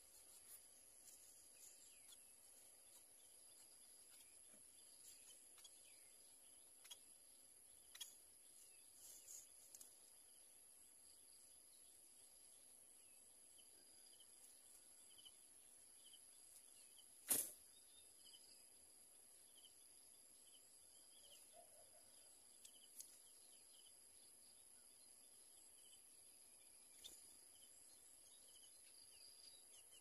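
Near silence with a faint steady high-pitched whine, broken by scattered soft clicks and rustles as a society finch shifts in its grass nest, and one sharp tap about seventeen seconds in.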